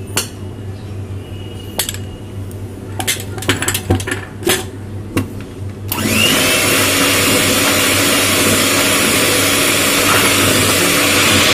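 Electric hand mixer starting up about halfway through with a brief rising whine, then running steadily as its beaters whip half-frozen butterscotch ice cream base in a steel bowl. Before it starts, a few light knocks and clinks.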